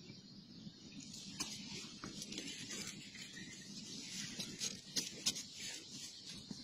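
Rustling and scratching in leaf litter and undergrowth, with sharp little clicks and crackles that start about a second and a half in and grow busier toward the end.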